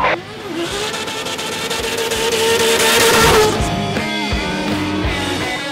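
Rock music with electric guitar, mixed with drift cars' engines running, one rising in pitch as it revs over about two seconds and then dropping off.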